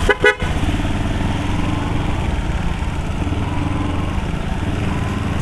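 Underbone motorcycle engine running steadily as the bike is ridden, heard from the rider's seat with road and wind noise. A few short knocks come right at the start.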